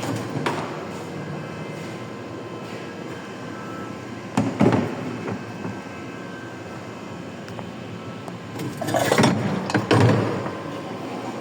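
A power tool running steadily, with louder, rougher surges about four and a half seconds in and again from about nine to ten seconds in.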